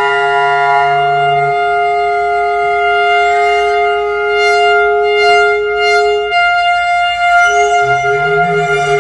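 Clarinets and alto saxophone improvising freely, holding long overlapping tones. The upper note breaks off about two-thirds of the way through and returns, and lower notes that step in pitch enter near the end.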